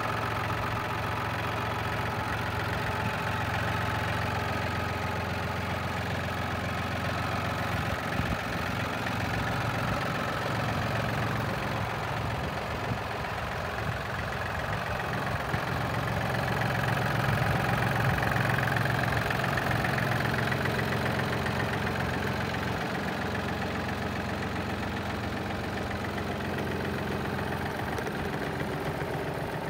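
2000 John Deere 790 compact tractor's three-cylinder diesel engine idling steadily, a little louder for a few seconds just past halfway.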